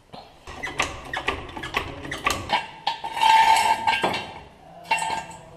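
Metal knocks and clanks of a hydraulic floor jack and steel jack stand being handled and set in place on a tiled floor, then a louder pitched scrape lasting about a second past the middle, and a shorter one near the end.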